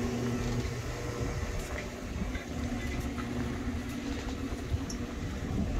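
Steady low mechanical hum of idling machinery, a constant drone with a low rumble under it.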